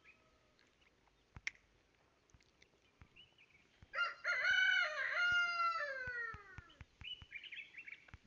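A rooster crowing once: a single cock-a-doodle-doo about four seconds in, lasting nearly three seconds and falling in pitch at the end. Faint scattered clicks come before and after it.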